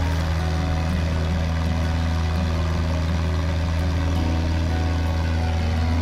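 Cessna 172's piston engine and propeller running steadily, a constant low drone with a hiss of air over it, heard from a camera mounted outside the airplane.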